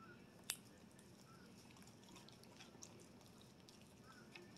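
Near silence with faint wet mouth clicks from chewing, and one sharper click about half a second in.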